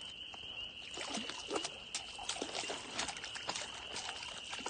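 Hooked chain pickerel splashing at the lake surface as it is fought in on the line, small irregular splashes and trickling water.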